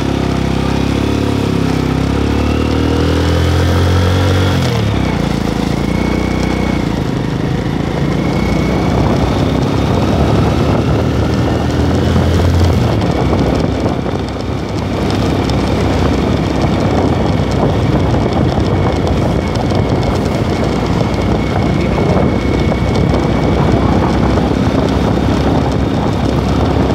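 Motorcycle engine running while riding, rising in pitch through the first few seconds as the bike speeds up. After that, wind rushing over the microphone covers much of the engine.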